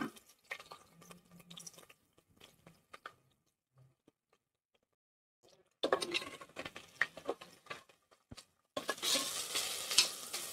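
Sliced onions frying in hot oil in a pressure cooker pot, with a metal spoon stirring them, scraping and clicking against the pot. Faint crackling at first, a short silent gap a few seconds in, then louder stirring and a sizzle that is strongest near the end.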